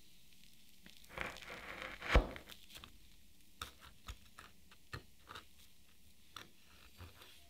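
Kitchen knife slicing down through a chilled cheesecake and its crunchy cookie-crumb base: a soft crunch with one sharp tap about two seconds in, then a run of small crackling clicks as the crust breaks apart.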